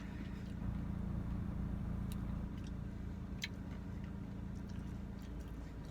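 Faint crunching clicks of chewing a mouthful of Blizzard with pretzel and peanut pieces, the clearest about two and three and a half seconds in, over a steady low hum.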